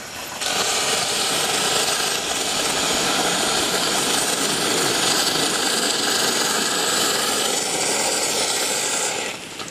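Steam venting hard from a 2-6-0 live steam miniature locomotive: a loud, steady hiss that starts suddenly about half a second in and cuts off suddenly shortly before the end.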